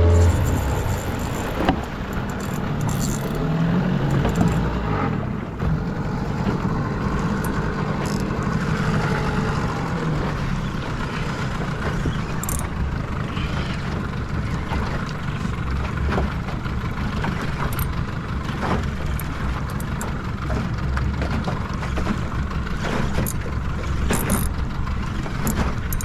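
Small 6-horsepower outboard motor on an aluminium dinghy running steadily at a low, even rumble.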